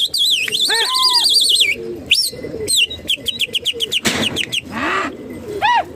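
Small birds chirping and singing close by: a fast, wavering high trill for the first second and a half, then a run of quick repeated chirps and arched whistled calls. A short rush of noise comes about four seconds in.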